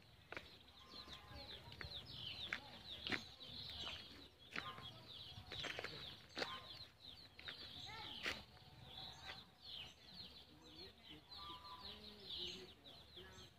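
Birds chirping with many short, high calls, chickens clucking now and then, and scattered crunching footsteps on dry fallen leaves.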